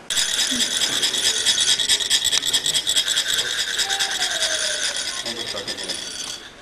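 Chak-pur, the ridged metal funnel used to lay sand in a mandala, being rasped with a metal rod so that coloured sand trickles out: a fast, even rasping that starts suddenly and stops just before the end.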